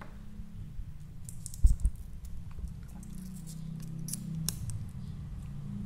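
Hands opening a plastic ink refill bottle: the cap turned and its plastic seal picked at, giving a few short scratchy clicks and crackles and one light knock about one and a half seconds in. A steady low hum runs underneath.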